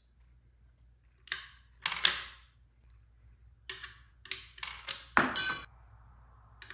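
Coins dropped one at a time into a wood-and-acrylic coin-sorting ramp, clicking and clattering as they roll down and fall out through the sorting slots. There are several separate clicks, and the loudest clatter, about five seconds in, has a brief metallic ring.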